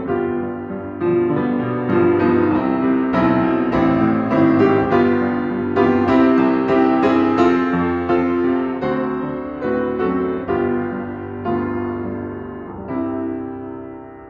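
Upright piano played at a slow pace, chords and melody notes left to ring. It grows gradually softer over the second half and closes on a chord that fades away.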